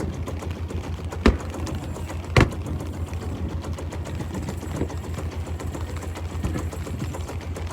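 Boat's engine running with a steady, rapidly pulsing low hum, broken by two sharp bangs about a second apart early on.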